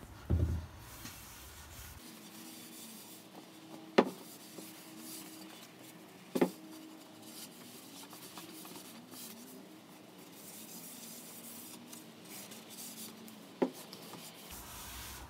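Cotton rag rubbing over hardwood boards, wiping off the excess of a first coat of oil-and-varnish finish. A dull thump comes right at the start, and three sharp knocks are spread through it.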